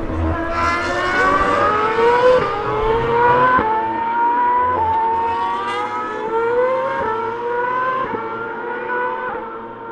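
Formula 1 2.4-litre V8 engines screaming under hard acceleration. Each climbs in pitch and then drops sharply at every upshift, a gear change about every second. More than one car is heard at once, fading slightly near the end as they pull away up the straight.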